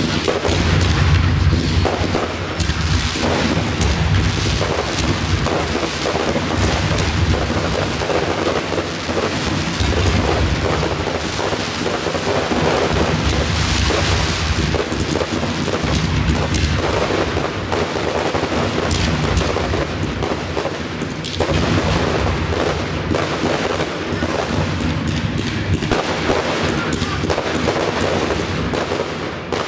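Professional fireworks display firing without a break: rapid, overlapping bangs of aerial shells and cakes with booming low rumbles and crackle, and a rushing hiss from low-level firing about halfway through.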